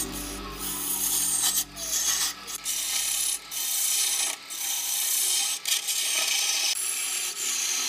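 Lathe gouge cutting into a large spinning block of wood: a steady scraping hiss of shavings being peeled off, broken several times where the tool briefly lifts from the wood.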